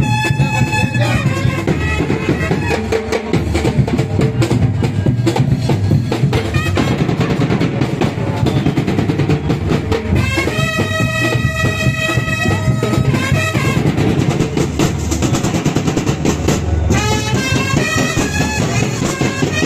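Loud festive dance music: steady, dense drumming throughout, with a brass melody that drops out for stretches and comes back.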